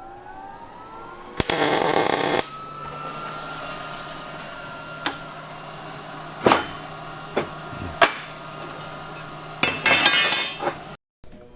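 A metalworking power tool's motor spins up, gives a short loud burst of grinding on steel, then runs on with a steady hum while metal parts clink sharply four times. A second grinding burst comes near the end.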